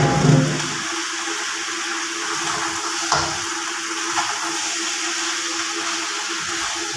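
Steady rush of water running from a tap over a low steady hum, with a brief louder bump right at the start and a short knock about three seconds in.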